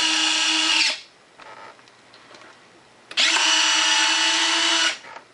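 Electric retractable landing gear of an RC jet whining as it cycles. There are two steady runs of about two seconds each, about two seconds apart, with the second starting about three seconds in.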